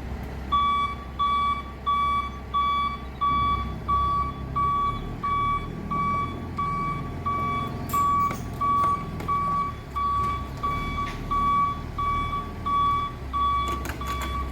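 Reversing alarm on a forklift beeping steadily, about three beeps every two seconds, starting about half a second in, over the low sound of its engine running. A few short knocks come around the middle and near the end.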